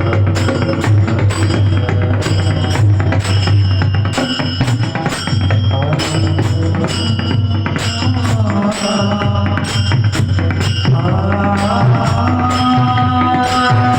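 Devotional kirtan music: a quick, steady beat of metallic hand-cymbal strikes over drumming, with held melodic tones that bend in pitch toward the end.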